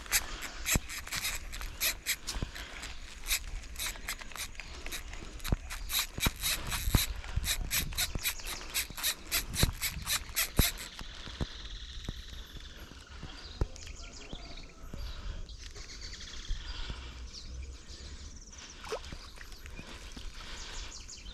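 Rapid clicking of a spincast fishing reel being wound in, about four clicks a second for roughly the first ten seconds, as a tilapia shot with a slingshot arrow is pulled in on the line. It then gives way to fainter splashing of the fish in the shallow water at the bank.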